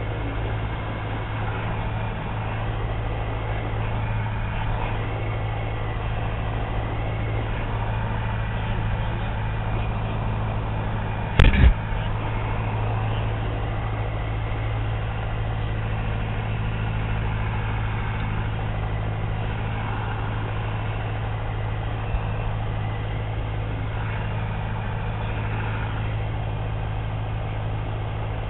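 Piper Cherokee's piston engine and propeller running at a steady speed, with an even hum. About eleven seconds in there is a sharp, brief double knock.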